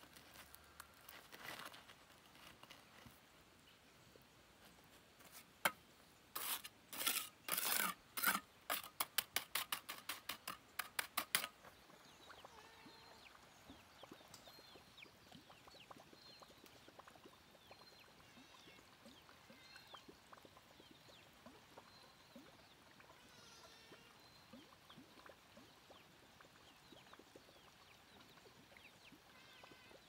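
A run of sharp taps or knocks lasting about six seconds, coming faster toward the end, then faint high chirping over a quiet background.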